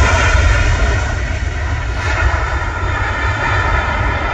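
Jet engines of an Airbus A321 running at high power during its roll along the runway, a loud steady roar with a deep rumble.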